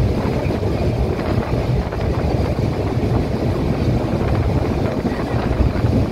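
Steady low rumble of a moving passenger train, heard at the carriage window, with wind buffeting the microphone.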